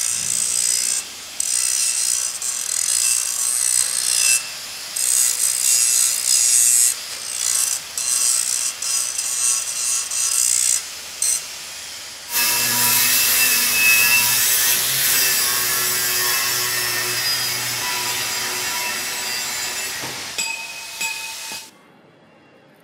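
Angle grinder grinding the end of a steel pipe to the curve of a tank. The disc bites in and eases off in short passes for about twelve seconds, then grinds steadily with a whine, and it stops shortly before the end.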